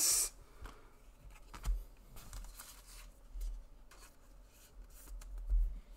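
Trading cards being handled: faint rubbing and sliding with scattered light clicks, a short rustle right at the start and a few soft low bumps.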